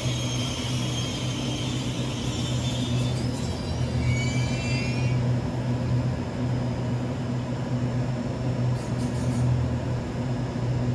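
EMU800 electric commuter train braking to a stop at the platform: high-pitched whines from the slowing train die away about five seconds in. After that the standing train keeps up a steady low hum.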